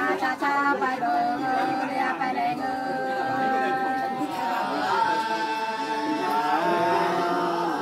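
Women singing hát sli, the Nùng people's unaccompanied antiphonal folk song, in long drawn-out notes that slide from one pitch to the next.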